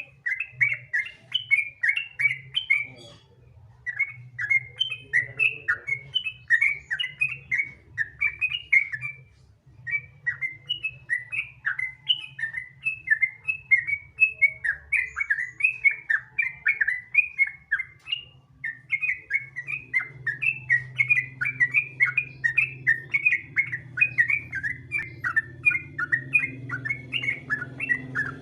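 Yellow-vented bulbul (trucukan) singing its rapid, continuous 'ropel' song: long runs of quick, bubbly chirping notes with a few short pauses between runs. A faint steady low hum lies underneath.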